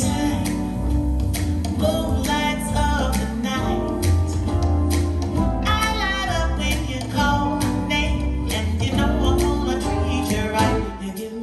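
A song with singing over guitar and a strong bass line, played through Polk R200 bookshelf loudspeakers.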